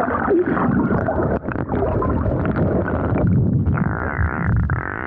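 Sea water sloshing and bubbling around a camera held just under the surface, heard muffled as a churning rumble; a buzzing hum joins it near the end.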